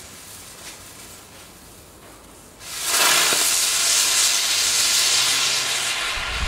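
Ground spinner firework (Pyro Power 'Tornado') catching about two and a half seconds in and then spinning with a loud, steady hiss of sparks.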